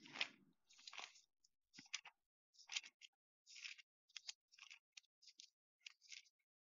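Near silence, with faint short rustling or scratching sounds scattered irregularly, about one or two a second.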